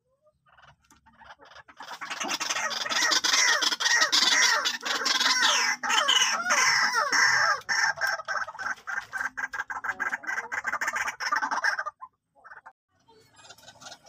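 White-breasted waterhens calling: a loud, dense run of rapidly repeated notes that swells in about two seconds in and cuts off suddenly near the end.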